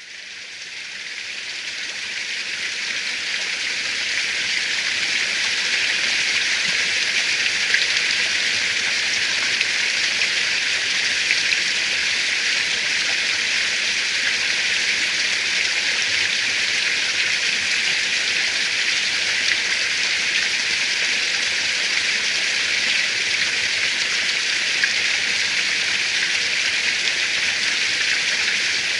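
Steady rain falling, a dense even hiss that fades in over the first few seconds and then holds.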